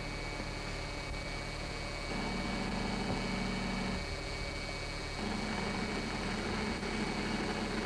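A steady mechanical hum with hiss. A lower droning band comes in about two seconds in, drops out at about four seconds, and returns a second later.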